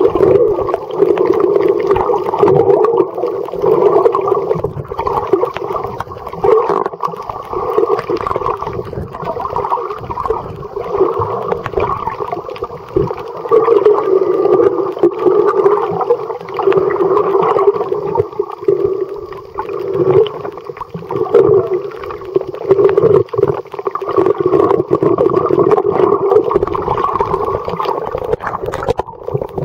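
Muffled underwater sound picked up by a submerged camera: a steady droning rush of water that swells and fades.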